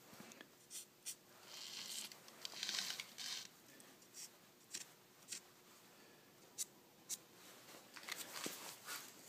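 Faint handling sounds from fitting a steel fixture plate and die grinder at a lathe's four-jaw chuck: scattered light clicks and metal knocks, with a few short scraping rustles in the first few seconds.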